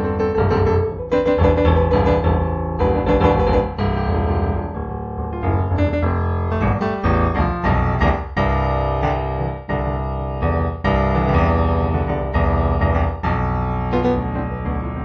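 Improvised solo piano music, chords and notes struck one after another and left to ring.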